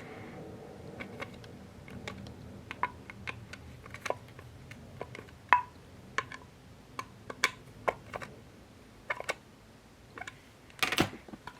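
Irregular small clicks and ticks of a Phillips screwdriver tightening the screws that clamp a new blade in a soap shaver, some with a short ringing tone. The loudest click comes about halfway, with a quick cluster near the end.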